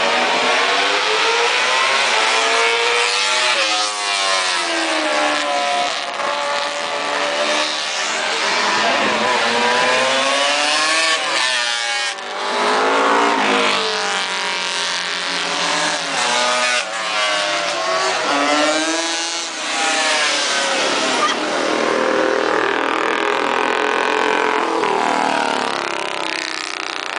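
Racing motorcycles going past one after another at full throttle. Each engine's note climbs as it revs, then drops in pitch as the bike passes, with several passes overlapping.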